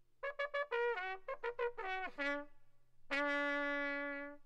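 Short trumpet fanfare: a quick run of short notes, several sliding down in pitch, then one long held note that fades slightly near the end.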